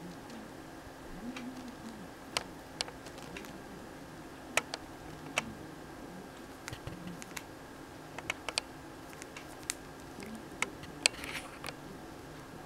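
Budgerigar nibbling fresh chickweed with its beak: sharp, irregular clicks and snips, sometimes single and sometimes in quick little runs.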